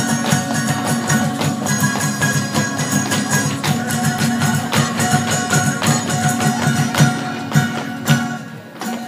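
Traditional folk dance music with a steady rhythmic low pulse, held melodic tones and bright jingling percussion; it briefly drops away just before the end.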